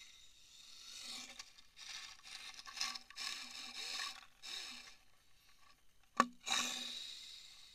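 1:28-scale WLtoys K989 electric RC car driving on rough asphalt, its small motor and gears whining in several swells as the throttle is worked, with tyre noise on the surface. A sharp knock comes about six seconds in, followed by one more swell that fades.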